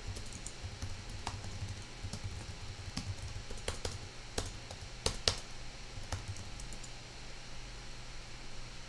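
Typing on a computer keyboard: irregular key clicks, with a few louder keystrokes about five seconds in.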